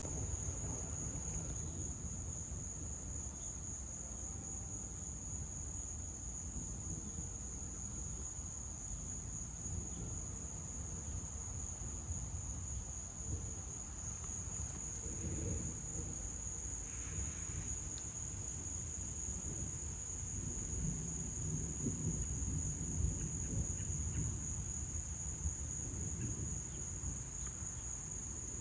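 Summer night insect chorus of crickets, a steady high-pitched trill without a break, with faint regular chirps just above it. A low rumble runs underneath throughout.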